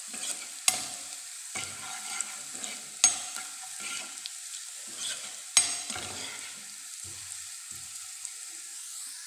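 Finely chopped ginger and garlic sizzling in hot oil in a non-stick frying pan, being fried until golden. A steel spoon stirs and scrapes through it, knocking sharply against the pan a few times.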